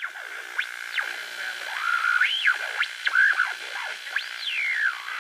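Electronic outro music: synthesizer tones sliding up and down in pitch over a steady high drone.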